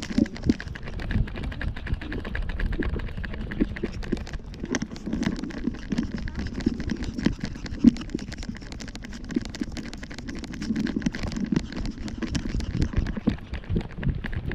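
Footsteps of people walking on pavement, with irregular knocks and rubbing from a handheld camera on a stick.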